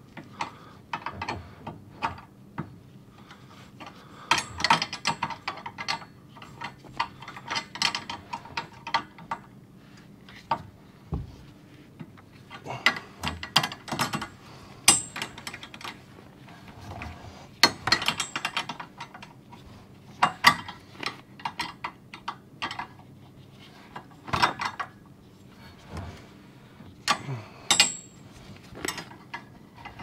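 Irregular metallic clicks, clanks and rattles of a garage door cable drum being turned and tightened onto its steel torsion shaft, with a couple of short high squeaks.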